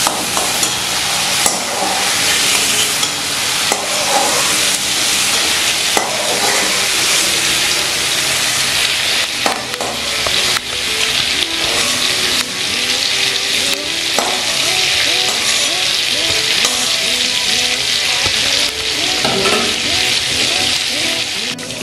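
Hot mustard oil sizzling steadily in a steel kadai, with a metal spatula scraping and clicking against the pan as fried prawns are scooped out.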